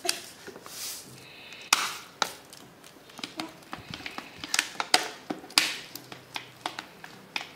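Thin plastic water bottle crinkling and crackling in irregular bursts as it is squeezed to push salt into a balloon stretched over its mouth.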